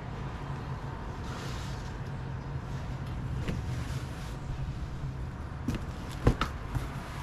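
Fabric being handled and unpacked, with soft rustling a second or so in and again around three and a half seconds, over a steady low hum. A few sharp knocks come near the six-second mark, one louder than the rest, as of things being set down.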